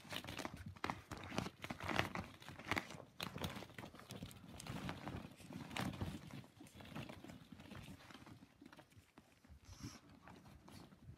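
Cocker spaniel puppies scrambling through a pit of hollow plastic play balls: the balls knock and clatter against each other in quick, irregular clicks, with some crinkling of the plastic sheet beneath.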